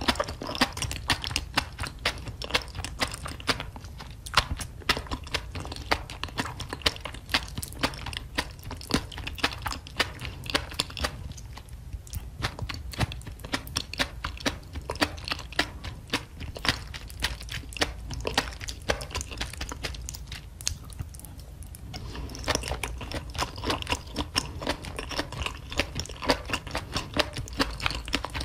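Close-miked chewing and wet mouth sounds from eating a spicy sauced octopus and noodle dish: a steady run of small clicks and smacks, with a couple of brief lulls.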